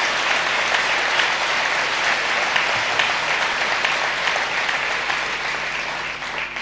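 Large seated audience applauding, many hands clapping at once; the applause cuts in suddenly and dies away near the end.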